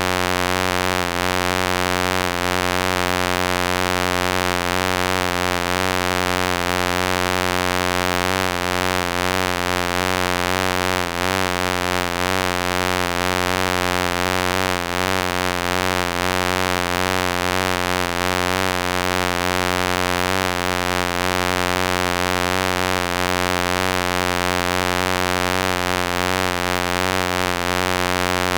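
Wasp buzzing: a steady, continuous wingbeat drone that wavers slightly in pitch and never breaks off.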